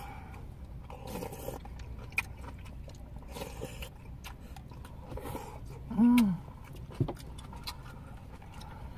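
Eating sounds of a soup mukbang: chewing and slurping, with a plastic spoon and chopsticks clicking against takeout soup bowls over a low steady hum. About six seconds in there is one short hummed vocal sound that rises and falls.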